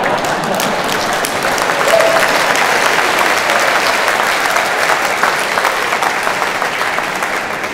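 Audience applauding in a large hall: dense, steady clapping that eases off near the end.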